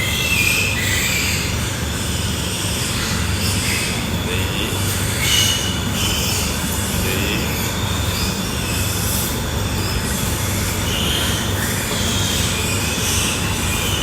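Pigs squealing, with short high squeals breaking over a steady noisy din.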